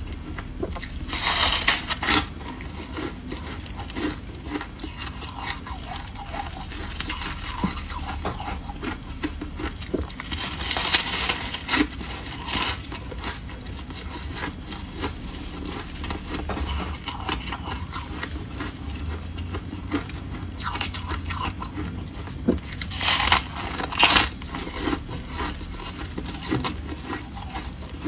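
Soft, foamy freezer frost being bitten and chewed close to the microphone, with a crunching, crackling sound. Three louder bites come about ten seconds apart, with quieter chewing between them.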